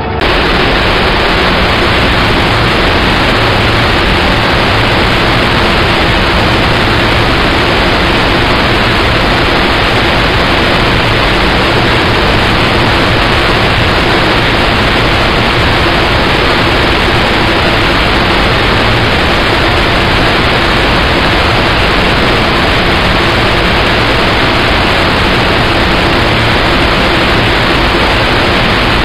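Colchester Student lathe turning aluminium with a carbide tool under cut: a loud, steady hiss-like cutting noise over the running machine, with a faint steady hum underneath.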